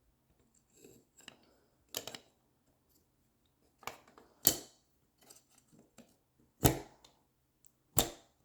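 Quadcopter frame parts and hardware being handled and set down: a scatter of sharp clicks and knocks, the loudest three about halfway, two-thirds of the way in and near the end.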